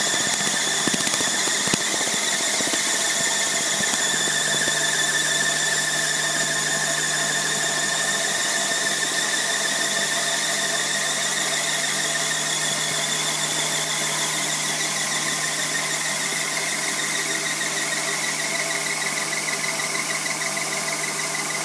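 Tripet MUS-100 universal grinder running idle, not cutting: its belt-driven external grinding spindle spins under oil-mist lubrication while the hydraulic table traverses. It makes a steady high-pitched whine over a hiss and a low hum, and a further, very high tone joins about halfway through.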